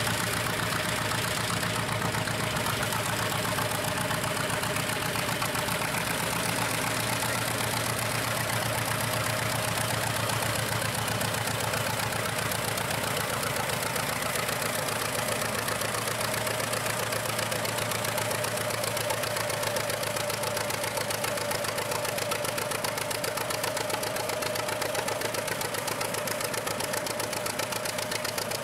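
John Deere Model D's two-cylinder engine chugging steadily as the tractor drags a weight sled on a pulling track.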